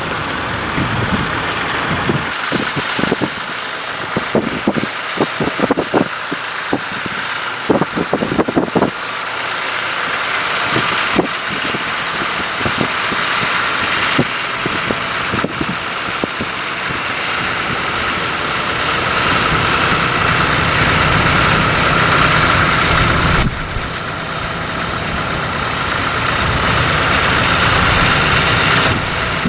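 Ford 4000 tractor engine running steadily under load while ploughing. There is a run of irregular low thumps in the first several seconds. The sound grows louder, then drops suddenly about two-thirds of the way through.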